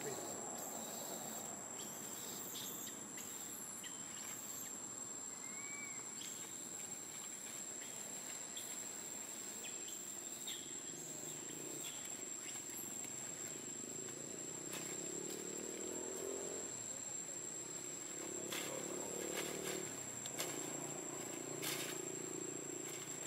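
Steady high-pitched insect drone, one unbroken tone throughout, with faint scattered chirps and clicks over it. A low murmur joins in from about halfway.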